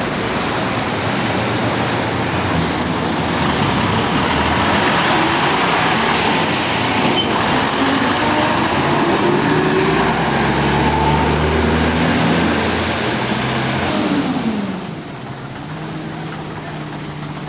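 Diesel engine of an AEC Regent III RT double-decker bus running close by as the bus pulls past, its note rising as it accelerates. Near the end the engine note falls away and the sound drops to quieter street traffic.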